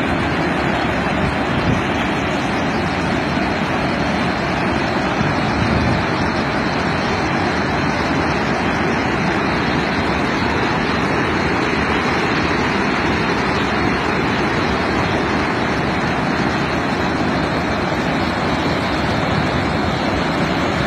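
Water pouring through the open gates of Rawal Dam's spillway and crashing into the basin below: a loud, steady rush of water.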